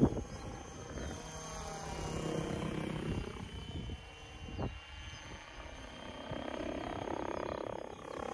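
Protos 770X Evo electric RC helicopter in flight, its rotor whoosh rising and falling in pitch as it moves around, with wind noise on the microphone. A sharp thump right at the start and a smaller one about halfway through.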